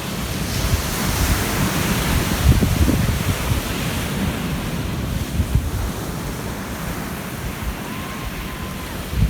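Ocean surf washing onto the shore, with the hiss of a wave swelling about a second in and easing off; wind buffets the microphone with a rough low rumble.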